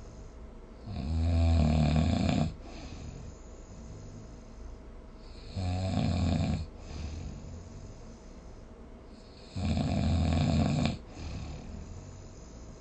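A sleeping person snoring: three loud snores about four seconds apart, each lasting a second or so, with quieter breathing between them.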